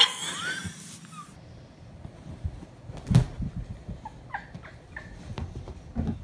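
A domestic cat's drawn-out meow ending right at the start, followed by a short rising meow. Then faint short squeaks and a few soft thuds, the loudest thud about three seconds in.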